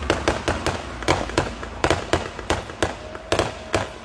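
Fireworks going off in a rapid, uneven series of sharp bangs, about three or four a second.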